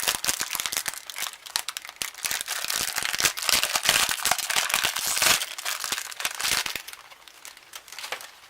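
Plastic packaging crinkling and rustling as it is handled and pulled at, with many small crackles and clicks. It eases off about seven seconds in.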